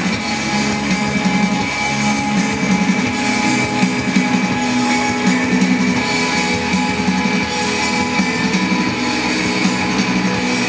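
Instrumental post-rock band playing live: layered electric guitars over a drum kit, a dense, steady wall of sound with no vocals.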